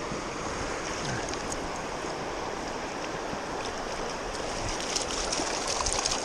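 Steady rush of flowing river water, with a few light clicks near the end.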